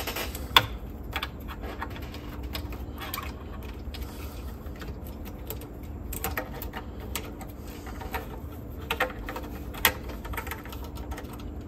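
Scattered light clicks and taps of small parts and wiring being handled and fitted inside a cassette deck. The sharpest click comes about half a second in and another near the end, over a faint steady hum.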